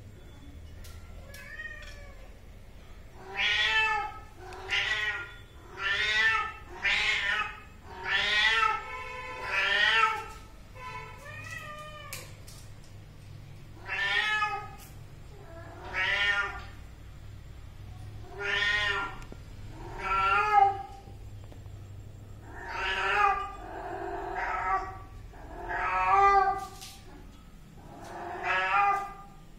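Cat meowing over and over: about fourteen loud meows, each under a second long, coming every one to two seconds and starting a few seconds in.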